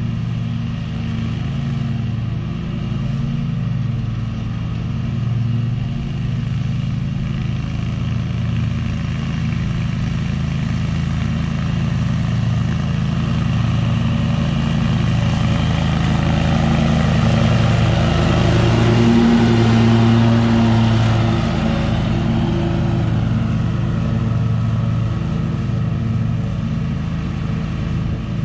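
Stand-on commercial zero-turn mower running steadily under load as it mows. It grows louder as it comes closer, loudest a little past the middle, then fades as it moves away.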